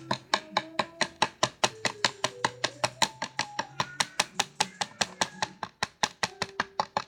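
A spoon clicking quickly and evenly against a bowl, about six or seven knocks a second, as slime is stirred; it stops suddenly near the end. Faint music plays underneath.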